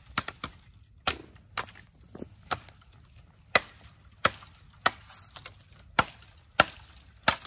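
Work Tuff Gear Puzon Wilderness Bowie 7, a 7-inch SK85 steel bowie knife, chopping into a tree branch while delimbing: about a dozen sharp wooden chops, most under a second apart.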